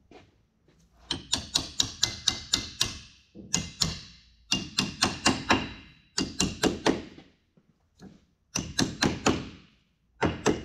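Hammer tapping a tight-fitting steel pressure plate down onto a transmission clutch pack, in quick runs of sharp metallic taps with a short ring, about five taps a second, broken by brief pauses.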